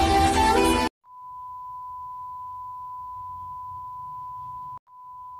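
Electronic dance music with a heavy beat stops abruptly about a second in. A steady pure electronic beep tone follows, held for nearly four seconds; it breaks off for an instant near the end and starts again.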